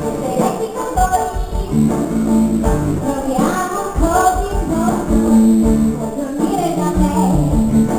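Live musical-theatre song: acoustic guitar and tambourine accompaniment with a singing voice.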